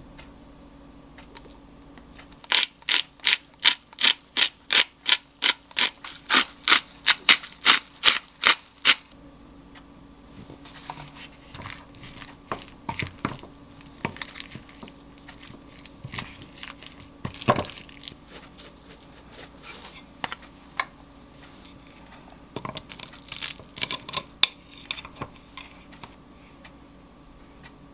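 A pepper mill is turned in a quick run of sharp grinding clicks, about three a second, for several seconds. Then a wooden spoon stirs and scrapes the salad in a glass bowl, with scattered soft clinks and one sharper knock midway.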